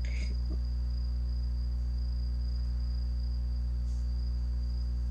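A steady low hum with a constant high-pitched tone above it, unchanging throughout; a few faint soft sounds in the first half second.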